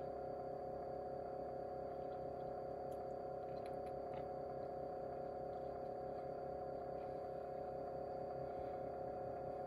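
A steady hum with a faint thin high tone above it, unchanging throughout, and a few faint clicks about two to four seconds in.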